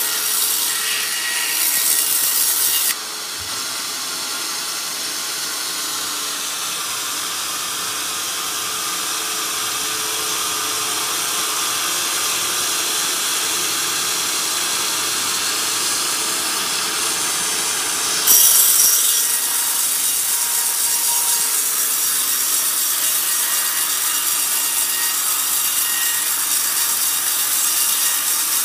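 Large band sawmill running and ripping a log, a steady loud sawing noise of the blade in the wood. The sharp high hiss of the cut drops out about three seconds in, leaving the machine running duller, and starts again suddenly about eighteen seconds in as the blade goes back into the wood.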